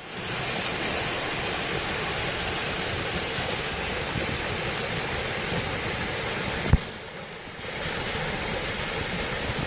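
Steady rush of water falling into a pool, as from a built-in cascade. The sound drops away with a click a little before the seven-second mark and comes back about a second later.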